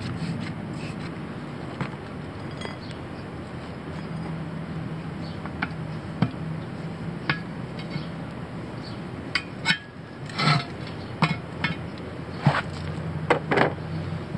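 Steel tire iron clinking and knocking against a steel wheel rim as a tire bead is levered over it by hand: a scatter of sharp metallic clinks, coming thicker in the second half.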